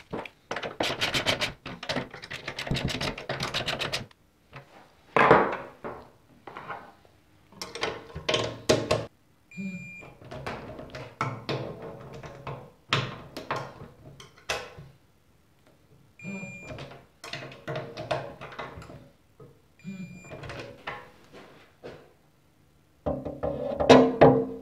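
Workshop tool sounds on the bearing carrier nuts: a run of rapid clicks as the nuts are run down, then a click-type torque wrench breaking over three times with a short metallic ring, one per nut, with clanks of the tools in between. Background music comes in near the end.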